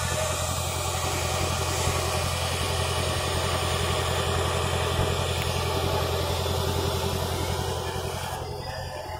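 An engine running steadily at idle, a low even hum with a fast regular pulse, its higher hiss dropping away near the end.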